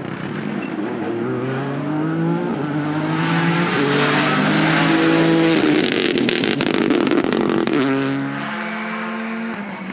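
Rally car accelerating hard through the gears, its engine pitch climbing in steps with each upshift as it approaches. As it passes, about six seconds in, there is a loud rush of noise with sharp crackles. The engine note then drops lower as it moves away.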